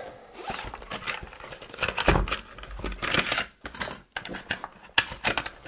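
Irregular rustling, clicks and a few sharper knocks as a charging bank and cables are handled and pulled from the pouch in the lid of a hard-shell drone carry case.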